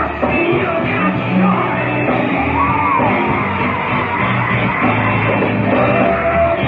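Live gospel band playing loudly, a low bass line moving under singing and shouting voices.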